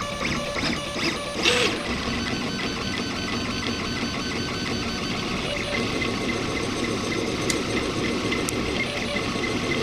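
RepRap Prusa Mendel 3D printer running a print, its stepper motors whirring and buzzing in quick changing runs as the print head moves back and forth laying down infill. A brief louder rush about one and a half seconds in.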